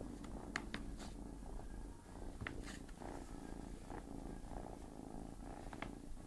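A cat purring steadily, with a few sharp crinkles and scratches as a kitten paws and rolls about in a paper bag.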